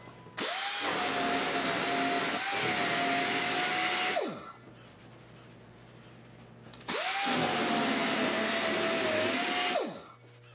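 Air-powered sander spinning a shrinking disc against a steel body panel. It runs twice, for about four and three seconds, each run spinning up quickly to a steady whine and winding down at the end. The rubbing heats the sheet metal to shrink out a high spot.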